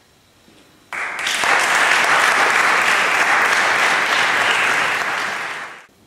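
Audience applauding, starting suddenly about a second in and stopping abruptly near the end.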